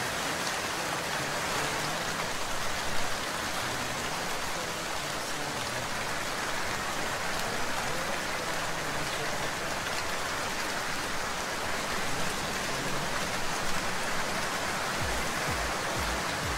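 Steady rain falling, an even hiss with no break. Near the end, low pulsing thuds come in at about three a second.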